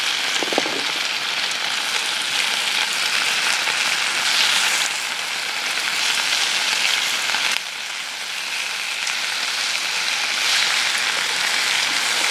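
Bacon sizzling in a skillet over a small wood-burning twig stove, a steady hiss, with a light metal clink of a utensil against the pan about half a second in. The sizzle drops suddenly in level about seven and a half seconds in, then carries on.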